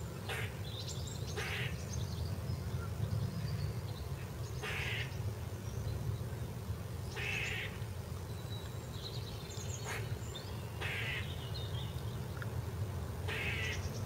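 Grey squirrel giving its alarm call: a short, rapid chattering "kuk" burst repeated about every two and a half to three seconds, five times, the sign of an agitated squirrel. Garden birds chirp thinly between the calls over a steady low rumble.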